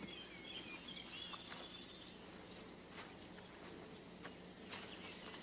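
Faint outdoor ambience with small birds chirping, mostly in the first second or so, over a steady low hum.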